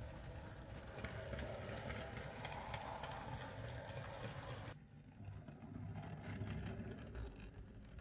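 Model train running on the track: a small locomotive hauling Hornby four-wheel coaches, its motor running with the wheels clicking over the rails. The sound changes abruptly about halfway through.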